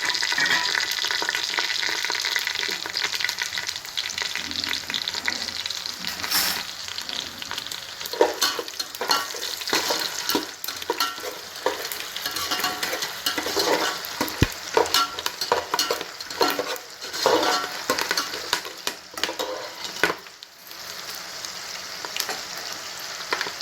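Whole spices sizzling in hot ghee and oil in a pot for the biryani tempering, with a spoon stirring and scraping against the pot in quick clicks. The sizzle drops to a quieter steady hiss near the end.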